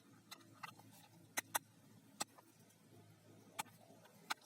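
Handling of plastic toy guns: a scatter of short, sharp plastic clicks and taps, about eight in all, the loudest two close together about a second and a half in.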